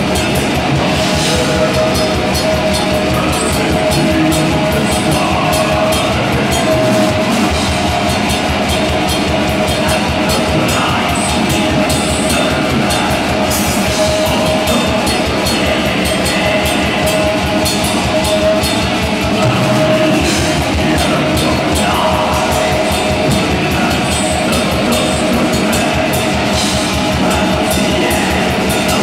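Black metal band playing live: distorted electric guitars and drums in a loud, unbroken wall of sound.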